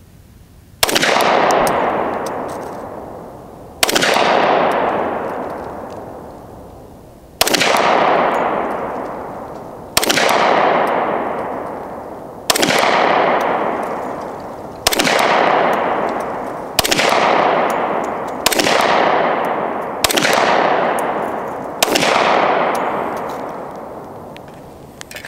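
Glock 20 10mm pistol firing ten shots of hand-loaded lubricated cast-lead ammunition at a slow, uneven pace, each shot sharp and followed by a long echoing tail.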